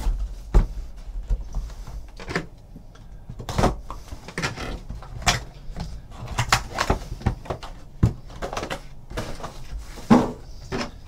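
Hands handling a cardboard trading card box and the packs inside it: the lid opening and packs being set down on the table, a scatter of light knocks, clicks and scrapes at irregular intervals.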